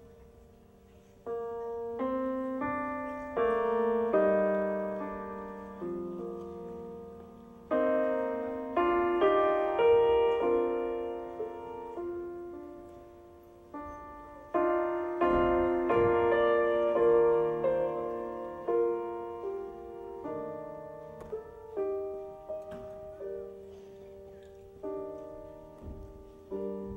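Solo piano playing an instrumental passage: slow chords, each struck and left to fade before the next.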